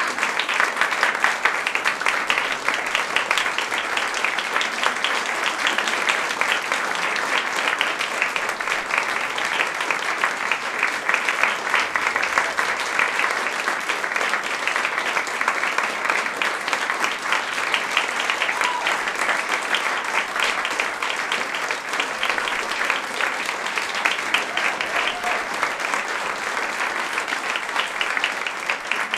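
Audience applauding, a steady dense patter of many hands clapping that eases off slightly near the end.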